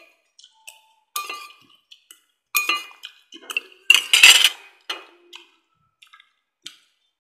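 Metal spoon and fork clinking and scraping against a ceramic plate and soup bowl: a series of sharp clinks, with the loudest clatter about four seconds in and only a few faint taps near the end.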